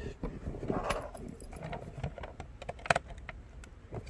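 Light clicks and clinks of a small solar charge controller being handled and taken out for a teardown. The sharpest click comes about three seconds in.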